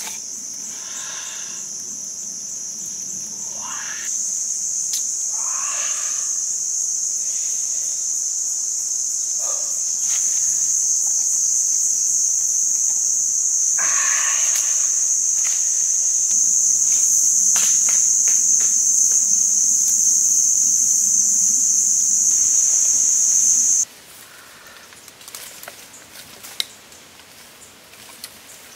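Cicadas droning in one steady high-pitched buzz that grows louder in steps, then cuts off abruptly about 24 seconds in.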